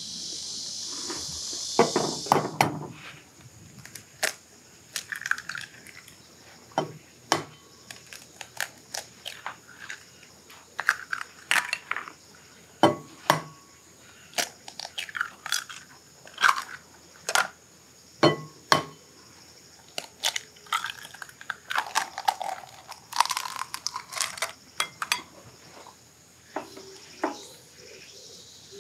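Eggs cracked one after another over a glass bowl: sharp cracks of shell breaking open, each followed by a short rustle as the shell is pulled apart, repeating about every second.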